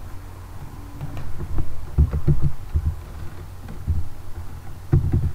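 Computer keystrokes and mouse clicks, heard as dull low thuds in a few quick clusters about two seconds in, then near four and five seconds, over a low steady hum.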